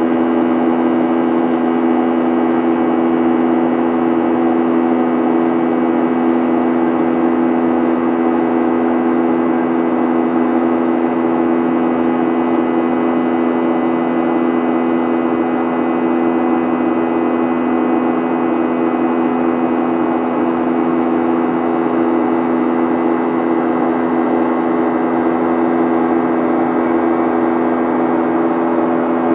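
Boeing 737 cabin noise heard from a window seat in flight: the engines' steady drone with a few low held tones over a constant rush of air.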